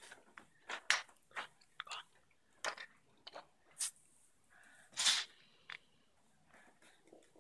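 Stiff paper pages of a spiral-bound photo book being handled: a string of short crackles and rustles, with a longer rustle about five seconds in.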